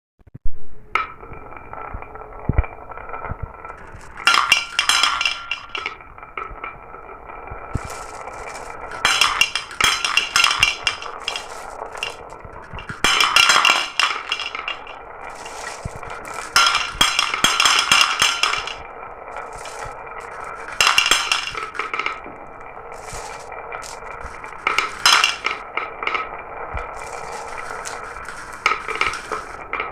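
Glass marbles rolling steadily down a marble run, with clusters of sharp clinking and clattering every few seconds as the marbles knock together and drop along the track.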